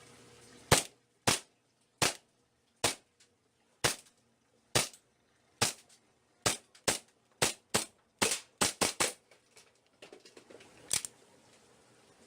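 Airsoft gun firing single shots, about sixteen sharp cracks at irregular intervals. The shots come faster around the eight-second mark, with one last shot near the end.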